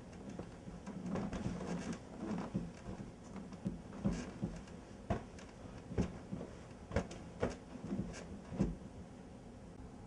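Bedding rustling as someone climbs into bed and settles under a blanket, followed by a string of sharp clicks and knocks roughly once a second.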